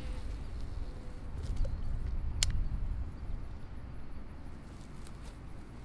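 Handling of a baitcasting fishing rod and reel over a steady low rumble, with one sharp click about two and a half seconds in.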